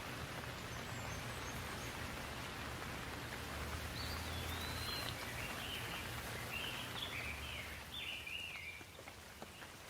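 Light rain falling steadily, with a bird singing short chirping phrases from about four seconds in.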